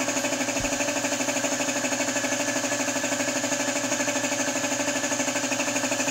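Small air compressor running steadily with a rapid, even pulse, feeding a spray gun that is spraying varnish onto a wooden cabinet.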